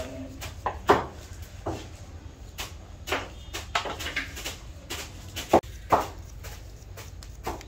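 Knife slicing a cucumber held in the hand over a steel bowl: crisp, irregular clicks of the blade going through, roughly two a second.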